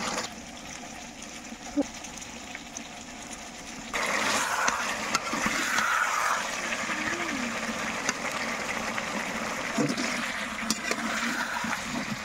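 Chicken and potato curry sizzling and bubbling in a metal kadai, with a spatula stirring and now and then knocking against the pan. The sizzle gets louder about four seconds in.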